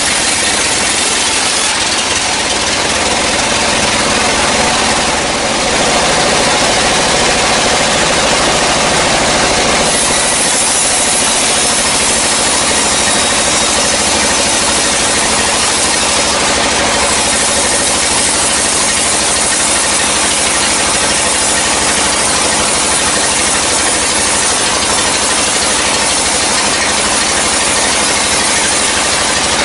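Sawmill band saw running loudly and steadily, its blade cutting through a dry, years-old log, with the machine's hum and mechanical rattle throughout.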